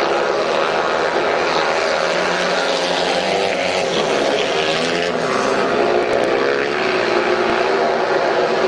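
Speedway motorcycle engines running hard on the track: 500cc single-cylinder methanol bikes with a buzzing drone whose pitch rises and falls as the bikes pass and change speed.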